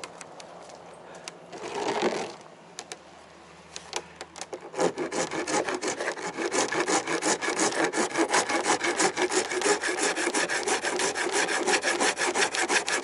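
Steel hand file rasping hardened epoxy drips off an epoxy-coated FRP boat hull. A few scattered scrapes and a short rub come first, then from about five seconds in a steady run of quick strokes, about five a second.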